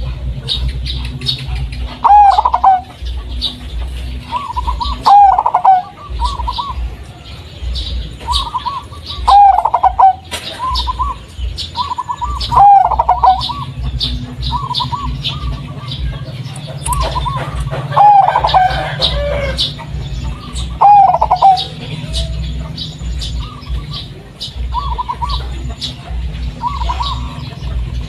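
Zebra dove (perkutut) of the local Blorok Madu variety cooing over and over in short phrases of rapid notes. Six loud phrases come every few seconds, with softer ones between, over a steady low hum.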